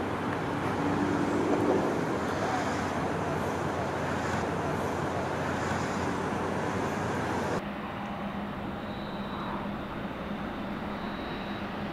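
Street ambience with a car driving past, swelling to its loudest about two seconds in. About two-thirds of the way through it cuts abruptly to a quieter train-platform ambience: a steady low hum and a few faint, short high-pitched tones.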